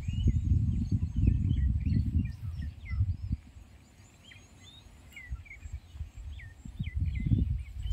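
Many birds chirping and whistling short calls throughout. A low rumble on the microphone sits under them and is the loudest sound; it drops away for a few seconds in the middle and returns near the end.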